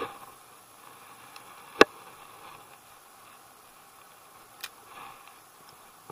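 Sharp clicks from a spinning reel being handled after a cast: one loud snap about two seconds in, like the bail closing, and a smaller click later, over a faint steady hiss.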